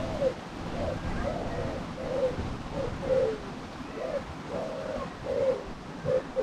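A pigeon cooing: a run of soft, low coos, about two a second in short repeated phrases.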